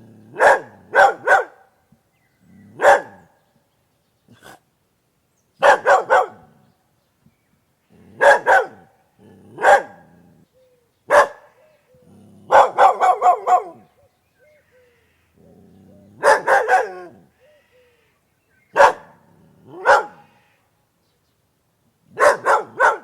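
A dog barking in short clusters of one to five barks, with pauses of a second or two between them; the longest run comes about halfway through.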